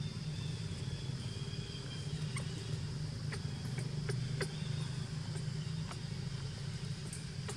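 A steady low engine hum with a few scattered light clicks and a faint, steady high-pitched drone over it.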